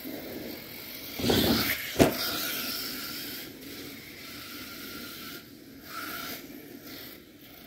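HSP Savagery RC monster truck driving over grass, its motor and tyres swelling loud about a second in, followed by a single sharp thump about two seconds in, the loudest sound here, then running on more quietly as it moves about the yard.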